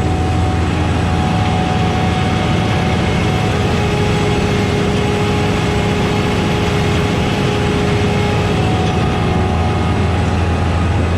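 Heavy farm-machinery diesel engine running steadily, with a constant low hum and a few steady whining tones above it.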